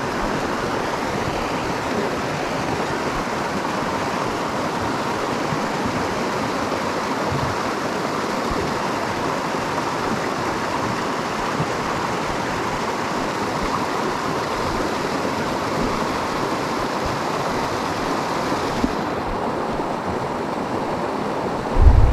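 Steady rush of running water from a mountain stream or waterfall. Its high hiss drops away about 19 seconds in, and a low thump comes near the end.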